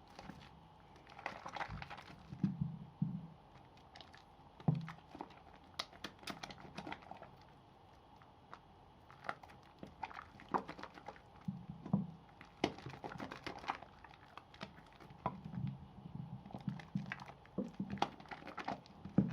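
Soap being lathered by hand with water: irregular wet squishing and crackling, with many small sharp clicks.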